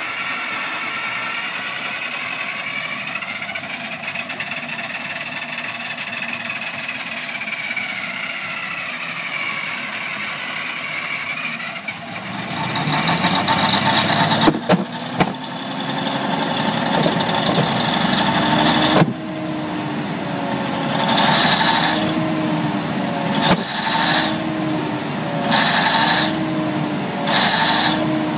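Large diesel generator-set engine cold-starting. It runs unevenly at low speed at first, then about twelve seconds in catches and picks up speed. After that its note rises and falls in a regular surge every couple of seconds as it settles.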